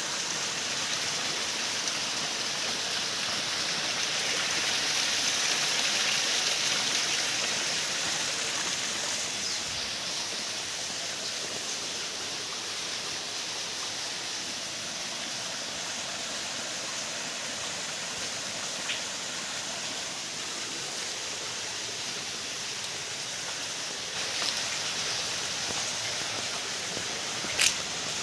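Steady rush of flowing water, swelling slightly early on, with a brief sharp click near the end.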